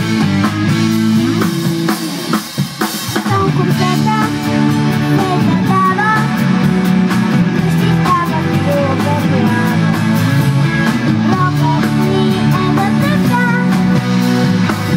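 Rock band playing: electric guitar and drum kit together, with a short drop in the sound about two seconds in before the full band comes back in.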